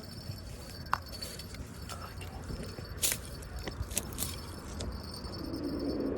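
Fishing rod and reel working during the fight with a hooked striped bass: a click about a second in, then short hissy bursts about three and four seconds in, typical of line pulling off the reel's drag. A louder low rushing noise builds near the end.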